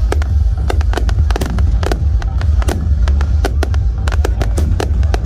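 Fireworks going off in rapid, irregular succession: many sharp bangs and cracks, several a second, over a continuous low rumble.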